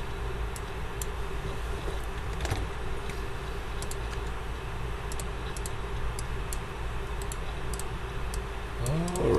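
Faint computer mouse clicks, a dozen or so at uneven spacing, over a steady low electrical hum. A short sliding voice sound comes just before the end.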